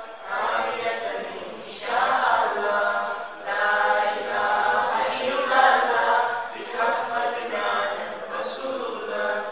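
A group of voices chanting together in unison, unaccompanied, in long melodic phrases.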